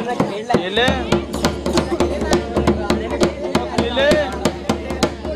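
Dhol drum beaten in a fast, even rhythm of about five or six strikes a second for jhumar dance music, over a steady held tone, with a high melody line that arches up and down twice.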